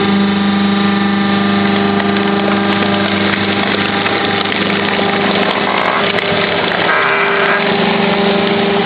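Vertical hydraulic baler's electric motor and hydraulic pump running steadily, an even hum with a constant whine.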